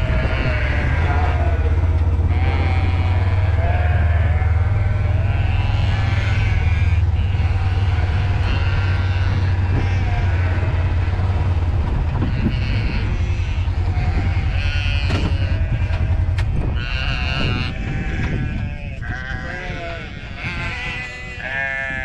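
A flock of hungry sheep bleating, many calls overlapping, over a steady low rumble. The rumble fades out after about seventeen seconds, and the bleating grows louder near the end.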